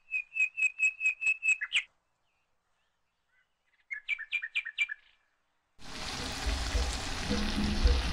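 Two quick runs of bird-like chirps. The first is about nine evenly spaced notes ending in a rising flourish, and the second, after a short pause, is about six notes. About three-quarters of the way in, a steady hiss starts together with background music.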